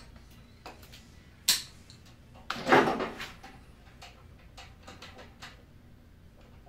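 Hand work on wiring inside a control panel: a sharp snip-like click about a second and a half in, a short louder rasp just under three seconds in, then a few faint ticks as wires are cut to length and handled.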